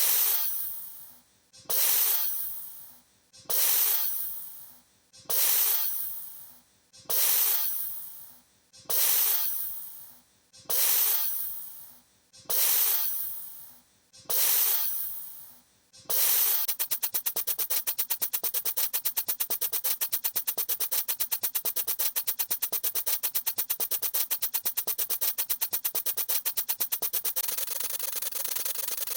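A hiss-like burst of noise that fades away, repeated nine times about every two seconds, then from about halfway a continuous fast rasping noise.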